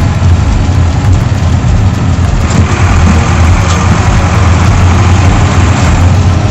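Mercedes-Benz LO-812 minibus's four-cylinder diesel engine running as the bus drives, heard from inside the cabin as a loud, steady low drone. A higher rushing noise builds about two and a half seconds in.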